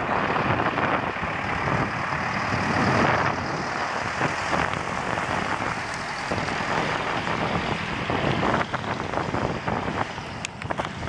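A truck passing close by and pulling away down the road, over a steady rush of wind on the microphone, with rattling knocks toward the end.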